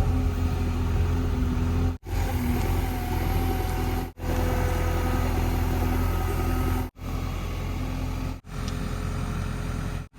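A diesel engine running steadily, most likely the JCB 3DX backhoe loader's, with faint steady whining tones above the low hum. The sound drops out to silence briefly five times.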